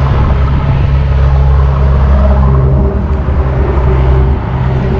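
Motor vehicle engine running close by, a loud, low, steady rumble with a slight drop in level near the end.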